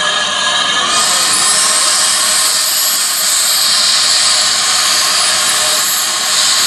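Steam hissing loudly from the open cylinder drain cocks of Caledonian Railway No. 419, a blue steam tank locomotive. The hiss swells suddenly about a second in and then holds steady.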